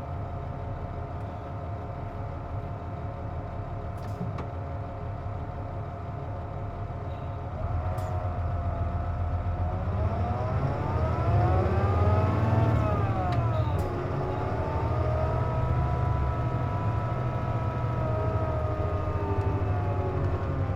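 Inside a Nissan Diesel JP (KC-JP250NTN) bus: engine and drivetrain running under a steady whining drone, the abnormal noise this bus makes with its air conditioning on. About eight seconds in it grows louder as the bus gets under way. The whine rises in pitch, falls again about thirteen seconds in, then holds steady.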